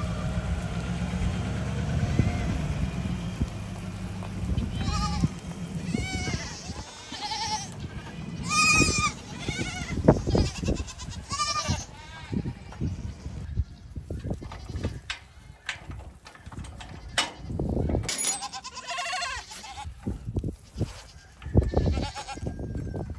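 Goats bleating again and again, many separate calls, over the low running of a Nissan Titan V8 pickup's engine in the first few seconds. Sharp clicks and knocks come between the calls.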